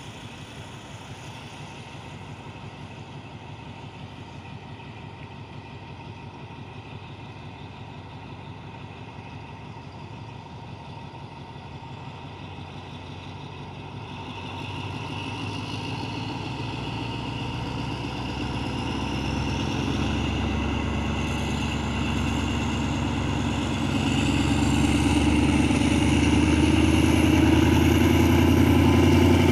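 Diesel locomotive hauling a passenger train, approaching: its engine running grows steadily louder from about halfway through. A motor scooter passes close by near the end.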